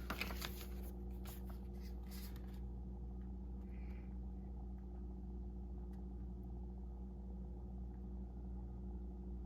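Light handling noise, a few short clicks and rustles in the first couple of seconds, over a steady low hum that runs throughout.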